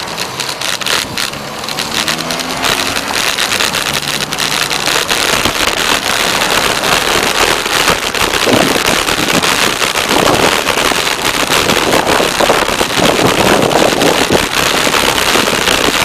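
Wind rushing over the microphone and road noise from a moving bicycle, with dense crackling clicks throughout. It grows louder over the first few seconds as the ride picks up.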